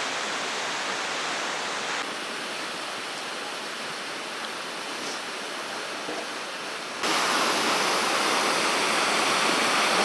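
Steady rushing of water falling behind the ice of a frozen waterfall. It shifts in level at cuts about two and seven seconds in, and is louder after the second cut.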